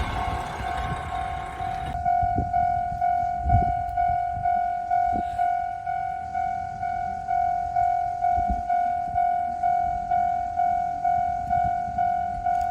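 Japanese railway level-crossing warning bell ringing, an evenly repeating electronic chime at about three strikes every two seconds, signalling a train approaching. A passing train's noise stops about two seconds in.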